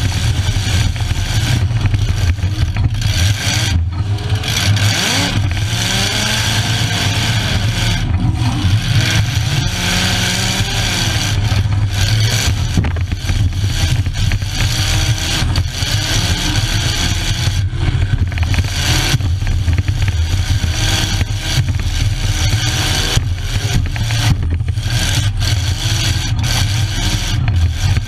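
A bump-and-run demolition derby car's engine, heard from inside the stripped cab, running hard and revving up and down as the car is driven around the arena.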